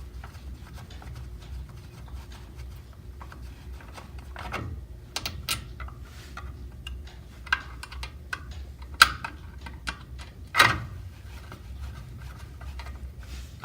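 Irregular plastic clicks and knocks as the plastic wheel cover of an exercise machine is handled and worked free, with two sharper knocks about two-thirds of the way through.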